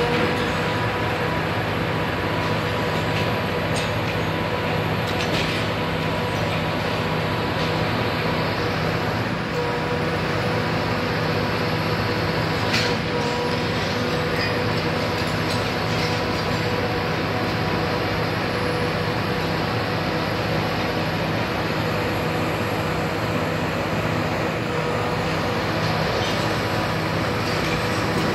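Hitachi Zaxis 350 high-reach demolition excavator's diesel engine and hydraulics running steadily: a low drone with a steady whine over it and a few faint knocks.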